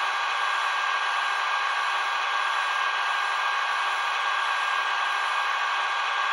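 Roco H0 model EDK 750 railway crane running its boom drive, a steady whir with a faint high tone held throughout as the jib lowers.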